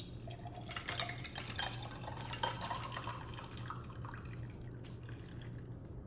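Coffee poured from a stainless steel thermal carafe into a tall glass of ice cubes: a liquid pouring and splashing sound with a few sharp clinks of ice against glass. The pour is strongest in the first half and thins to a light trickle toward the end.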